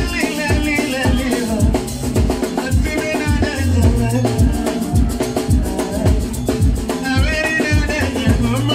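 Loud dance music with a steady kick-drum beat and bass, and a singing voice at the start and again near the end.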